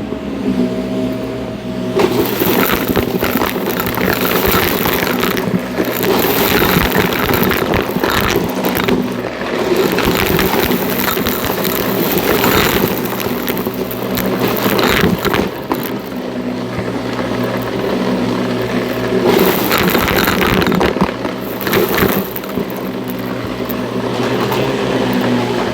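Shark NV351 upright vacuum running with a steady motor hum, broken by repeated spells of crackling and rattling as it sucks up crunchy debris.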